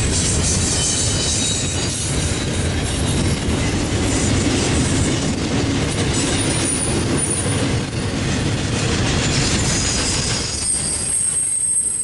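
Long intermodal train of container well cars rolling past, a steady heavy rumble of steel wheels on rail. A thin, high-pitched wheel squeal comes in past the middle and is strongest near the end, as the rumble eases.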